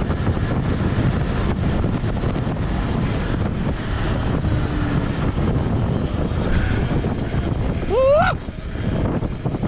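Wind rushing over the camera microphone, with tyre noise, as a mountain bike descends a paved road at speed. About eight seconds in, one short high squeal rises in pitch and then falls away.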